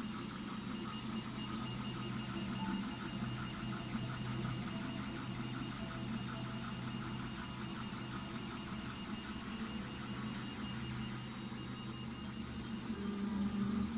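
Large-format FDM 3D printer running a print: fans and stepper motors whirring steadily, with a quick, even pulsing as the print head moves over the part.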